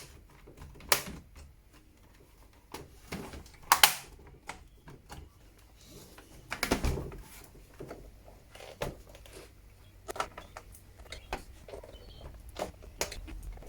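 Scattered clicks and knocks of a laptop's plastic case being closed and handled. The sharpest click comes about four seconds in, and a longer scraping knock about seven seconds in.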